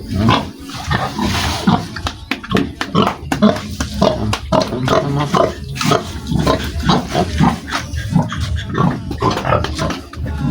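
Pigs in a pen grunting, many short calls in quick, irregular succession.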